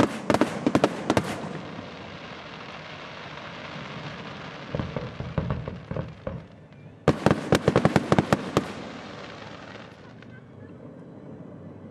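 Fireworks display: a rapid volley of sharp aerial shell bursts, each volley trailing off in a long fading wash of sound. There are a few scattered bangs around the middle, and a second quick volley about seven seconds in, which dies away near the end.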